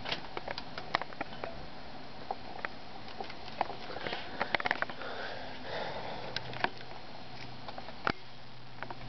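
Dwarf rabbits nibbling and chewing lettuce leaves: irregular small crunching clicks and soft leaf rustling, with a single louder knock about eight seconds in.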